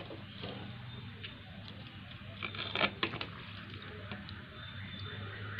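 A hand dipping idlis into a plastic bowl of water and lifting them out: soft splashing, with a few light knocks a little before halfway through, over a steady low hum.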